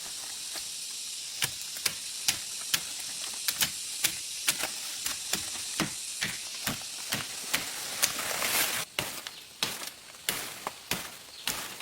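A steady high hiss with many irregular sharp clicks and knocks over it. The hiss drops away about nine seconds in while the clicks go on.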